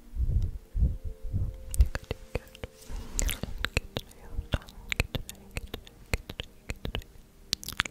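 Close-microphone ASMR trigger sounds: soft low thumps for about two seconds, then a run of quick, crisp clicks with a brief hissy swish, and some whispering.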